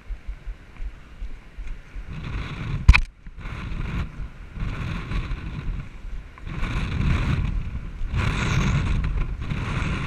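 Wind buffeting the action camera's microphone in uneven gusts, with one sharp knock about three seconds in.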